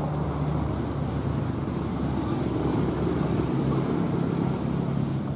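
Diesel locomotive engine of an approaching train running as a steady low drone.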